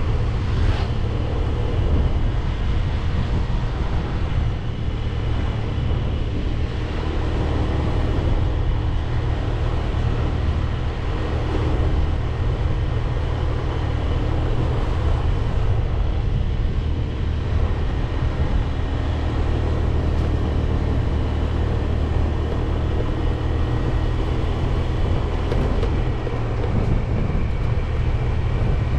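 Motorcycle running steadily on the road with a low engine rumble, mixed with wind and road noise.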